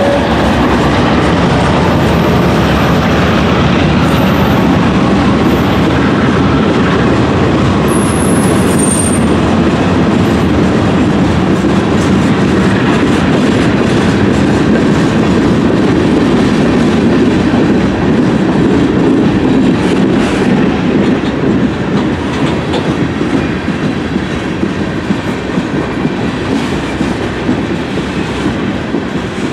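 CSX manifest freight train's cars rolling past close by: a steady loud rumble of steel wheels on rail with rapid clickety-clack over the rail joints. A few brief high-pitched wheel squeals come in the first nine seconds, and the sound eases slightly near the end.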